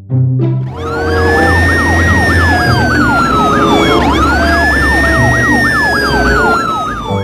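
Emergency-vehicle siren. A wail climbs and then slowly falls, twice, with a fast up-and-down yelp pulsing about three times a second over it. Music with low bass notes plays underneath.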